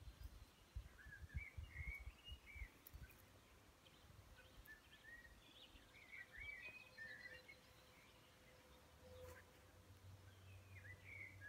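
Faint birdsong: short chirping phrases from a bird, coming in three bouts, over a quiet background.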